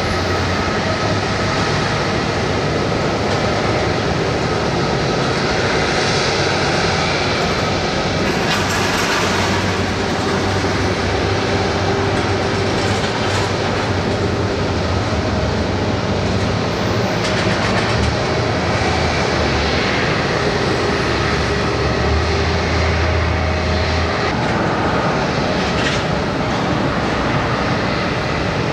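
Airbus A330-300's Rolls-Royce Trent 700 turbofan engines running at taxi power as the airliner taxis: a steady engine noise with a low rumble and a faint steady whine.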